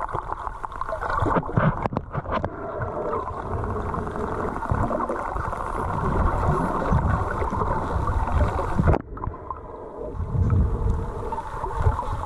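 Muffled underwater noise heard through a camera held under the sea: water rushing and gurgling with low rumbles. A cluster of sharp clicks comes about two seconds in, and the hiss drops off suddenly about nine seconds in.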